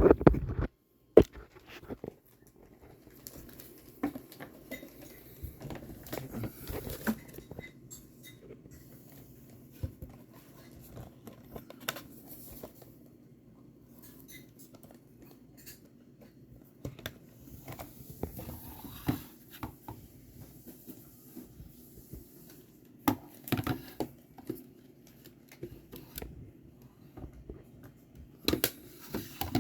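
Packaging being handled and opened: intermittent rustling and crinkling with scattered clicks and taps.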